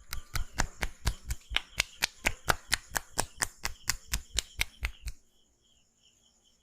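Barber's hands slapping and tapping rhythmically on the head during a massage, about four or five quick strokes a second, stopping suddenly about five seconds in.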